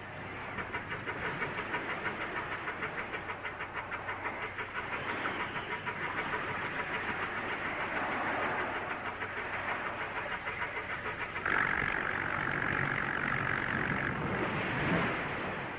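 Old motorboat engine chugging in an even rhythm of about four beats a second, then a steady high whistle-like tone for about two seconds near the end, over the hiss of an early sound-film track.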